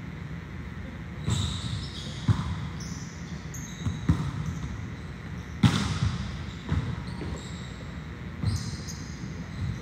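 Volleyballs being struck and bouncing during serve-receive practice: about six sharp slaps a second or so apart, the loudest a little past halfway. Short high squeaks come between the hits.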